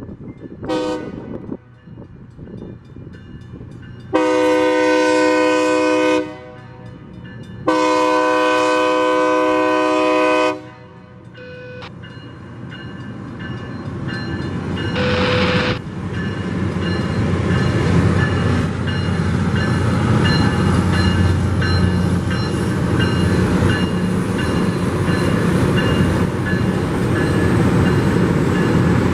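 Chime air horn of a Loram rail grinder train: a brief toot, then two long blasts, a faint short one and another short blast. After the horn, the rumble of the grinding train grows steadily louder as it approaches.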